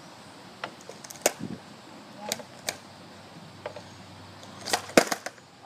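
Skateboard on concrete during a botched ollie attempt: a few light knocks as the feet shift on the board, then a little before the end a loud clatter of the tail popping and the deck and wheels slapping back onto the pavement.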